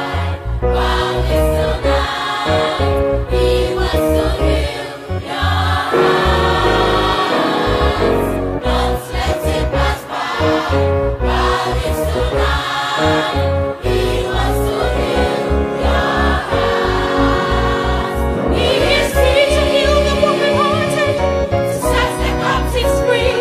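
Gospel choir singing with band accompaniment: a bass line and drums keeping a steady beat.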